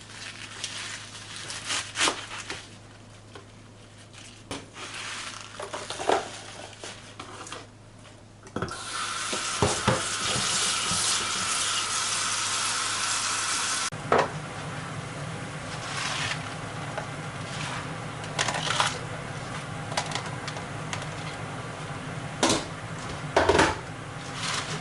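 Home kitchen cooking sounds: utensils clinking on pots and dishes, then a loud rushing hiss for about five seconds, then a steadier, quieter noise with occasional clinks.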